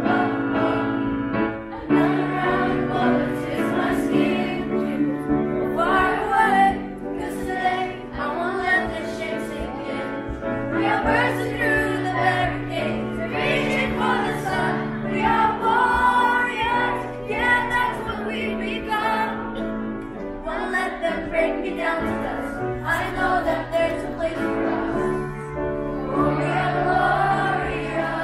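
A song: several voices singing together over held instrumental chords.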